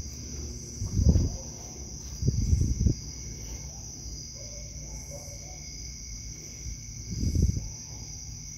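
Steady high-pitched chirring of crickets, with a few dull knocks and bumps: one about a second in, a cluster between two and three seconds, and one more about seven seconds in.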